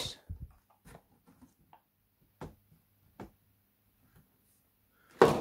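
Clear plastic blister packaging being handled: a few light, separate clicks and crinkles, then a louder plastic clatter near the end.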